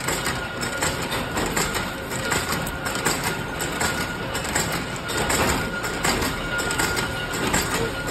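Spoon-making factory machinery running: a steady, dense mechanical noise with a constant high whine through it.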